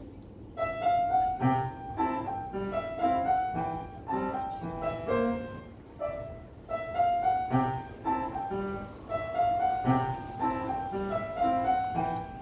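Solo piano playing a gentle melody, the same phrase played twice.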